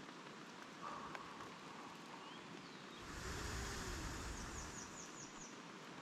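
Outdoor ambience: a gust of wind rumbles on the microphone about three seconds in, and a small bird calls, ending with a quick run of five high notes near the end.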